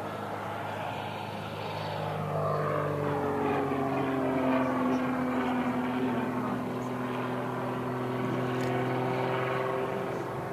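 Zlin Z-242L's four-cylinder Lycoming piston engine and propeller droning as the aerobatic trainer flies overhead. The pitch slides down a few seconds in and the sound is loudest near the middle, then holds steady.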